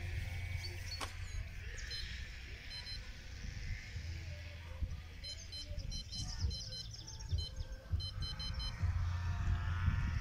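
Sheep bleating in the distance near the start and again near the end. Between the bleats, several runs of short high beeps, over a low steady rumble.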